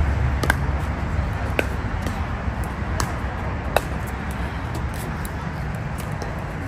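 Pickleball paddles striking a hard plastic ball during a rally: four sharp pops within the first four seconds, over a steady low outdoor rumble.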